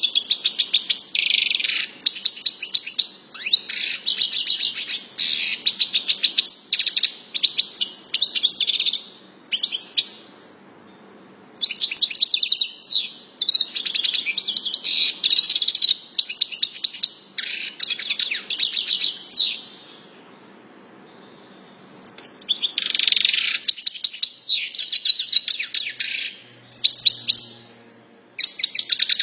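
Caged European goldfinch of the large Major type singing long phrases of rapid, high twittering notes, breaking off twice for a second or two.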